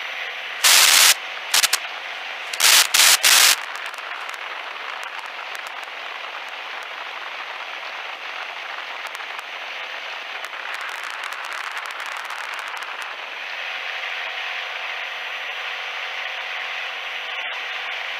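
Steady rushing noise of an open-cockpit biplane climbing out after takeoff, wind and engine blended together. A few short, loud crackling bursts cut in about a second in and again around three seconds in.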